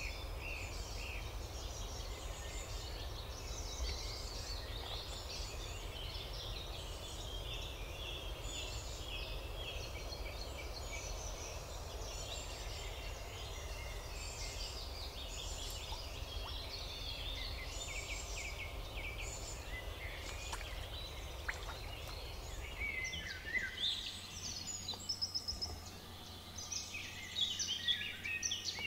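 A chorus of several songbirds singing on top of one another, many short chirps and trills, over a low steady rumble. About two-thirds of the way through the rumble drops away and a nearer bird's song comes in louder, its phrases falling in pitch.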